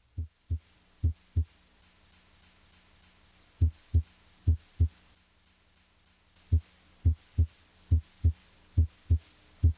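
Heart sounds heard through the bell of a stethoscope: paired low thumps of S1 and S2 (lub-dub), a little faster than one beat a second, with two breaks of about two seconds in the beating.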